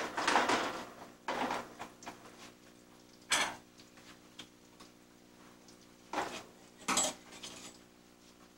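Metal pans and utensils clattering and clinking on a commercial kitchen stove, in about five separate bouts of knocks.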